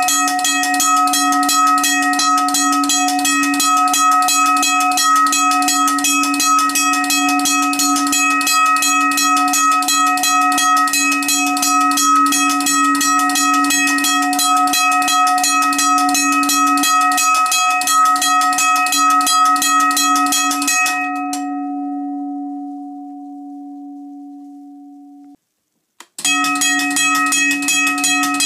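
US&S teardrop railroad crossing bell, an electric bell whose solenoid-driven striker hammers the gong in rapid, even strokes. About 21 s in the striking stops and the gong rings down for a few seconds before cutting off. Rapid striking starts again shortly before the end.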